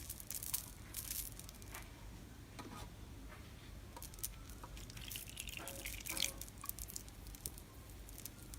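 Slime being squeezed and worked by hand, making scattered wet clicks and sticky pops, a few of them louder about half a second in and around six seconds in.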